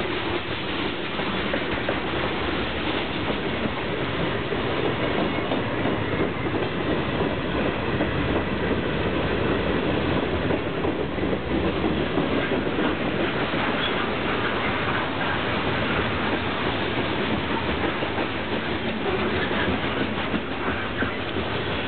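Freight train of tank cars rolling past close by: a loud, steady noise of steel wheels running over the rails.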